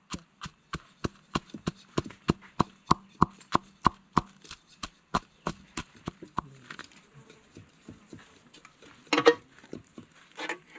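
A wooden pestle pounding a wet chili-and-fish paste (Lao pon) in a wooden mortar: steady dull knocks, about three a second, which stop after six or seven seconds. Two short, loud scraping noises follow near the end.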